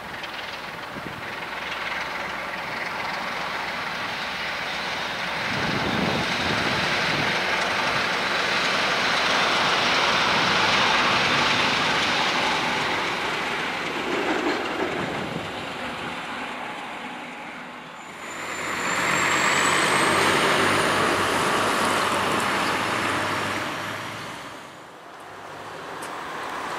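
A diesel locomotive running past at a distance, with no wagons in view: a broad rumble of engine and rolling wheels that builds to a peak and then fades. About two-thirds of the way in the noise drops suddenly, and a second, equally loud swell of similar noise follows, with a faint rising whistle high above it.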